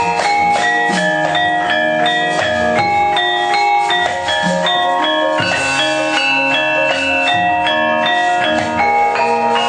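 Javanese gamelan ensemble playing: bronze metallophones struck in a steady run of ringing notes that overlap one another, with deeper tones sounding underneath.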